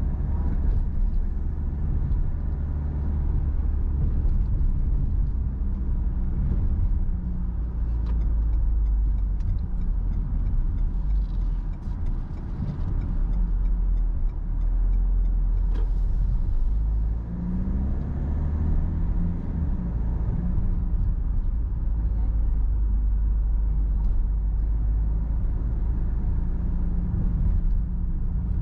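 Car driving along, with a steady low mix of engine and road noise. The engine note rises and falls a few times as the speed changes.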